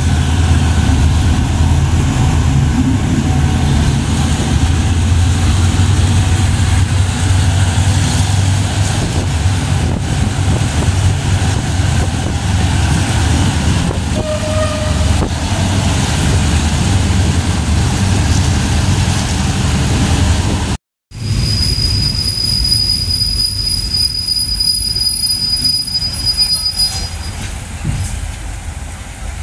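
Local passenger train running on the rails, heard through an open coach window: a steady, loud low rumble of wheels and coach. About 21 seconds in, the sound drops out for a moment, then comes back quieter, with a thin, steady high squeal lasting several seconds.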